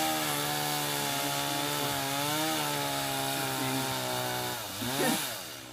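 Chainsaw running steadily at high speed. Near the end it drops in pitch, briefly revs back up, then dies away.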